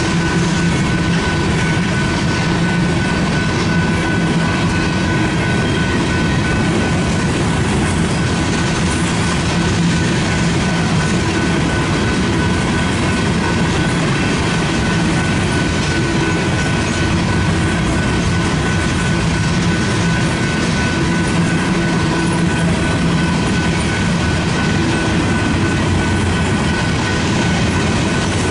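Union Pacific train rolling on the rails: steady, loud steel-wheel noise with high squealing tones held throughout and a light clickety-clack.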